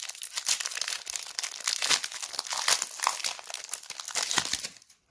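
Foil wrapper of a trading-card booster pack being torn open and crinkled by hand: a dense, irregular crackle that stops near the end.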